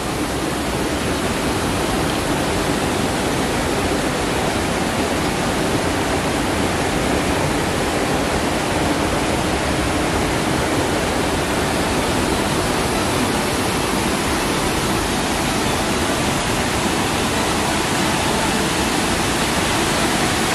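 Rocky mountain river rushing over boulders and a small waterfall: a loud, steady rush of water.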